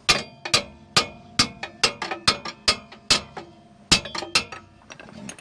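Hammer striking metal, a dozen or so sharp clanks at two to three a second, each ringing briefly, with a short pause a little after three seconds. It is tapping a bolt into place through the Bronco's rear suspension knuckle, before its nut goes on.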